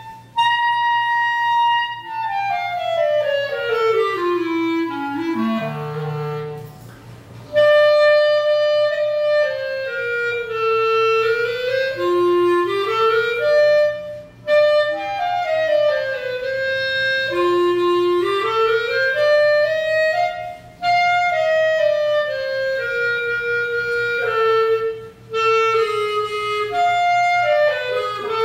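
Solo clarinet playing a slow melody: a long descending phrase down to a very low note, then phrases that rise and fall, separated by short pauses.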